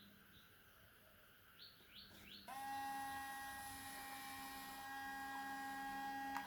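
Small electric motor whining at a steady pitch. It starts suddenly about two and a half seconds in, after a few faint high chirps, and cuts off with a click near the end.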